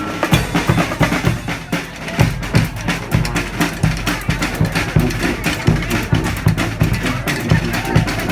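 Marching band playing, with busy, driving drumming to the fore: snare-type strokes over a thumping bass drum.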